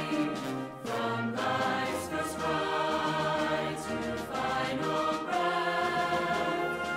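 Group of voices singing a slow hymn, long held notes changing about every second.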